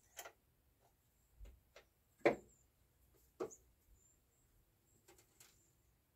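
A handful of light, scattered knocks and clicks of tools or metal parts being handled, the sharpest about two seconds in.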